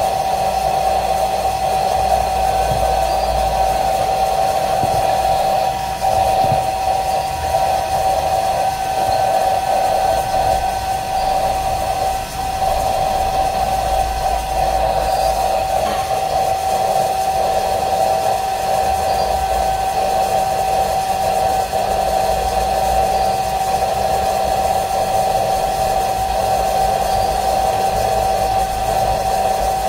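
Hair dryer running steadily, a constant rush of air with a steady mid-pitched whine, heating a phone's back cover to soften its adhesive.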